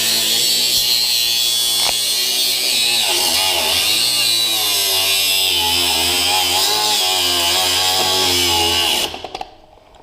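Electric power cutting tool running hard as it cuts through the motorcycle's metal muffler support bracket, its motor pitch sagging and recovering under load. It stops suddenly about nine seconds in.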